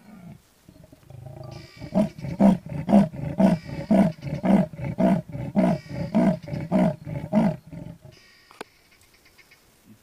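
Male leopard giving its rasping sawing call: about a dozen hoarse grunts at roughly two a second, like a saw drawn through wood, building up about a second and a half in and stopping near the end. This is the leopard's territorial advertising call.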